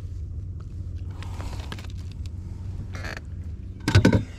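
A crappie being handled in a landing net and lifted out by hand: a short rasp about three seconds in, then a louder burst of knocks near the end, over a steady low rumble.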